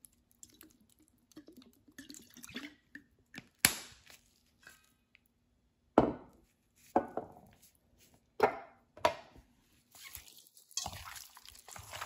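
Kitchen handling at a stainless steel mixing bowl of marinating spare ribs: soy sauce poured from a bottle, a handful of sharp clicks and knocks, then wet, sloppy sounds near the end as the ribs are mixed by hand in the sauce.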